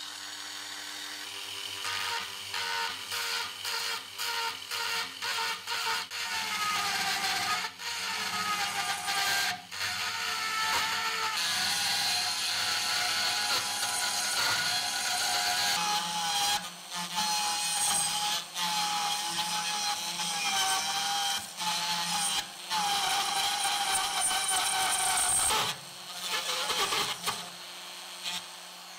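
Rotary multifunction tool with a small burr grinding down a metal pin through a wooden screwdriver handle, to free the handle. A high motor whine with gritty grinding, broken by several short pauses, easing to the lighter sound of the tool running near the end.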